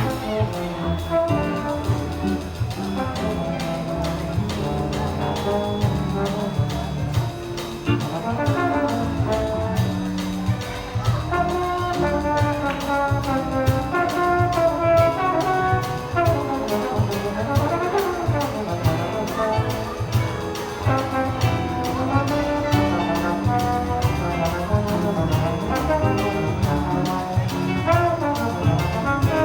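Jazz big band playing: the brass section (trumpets and trombones) carries moving ensemble lines over bass and a drum kit keeping a steady beat.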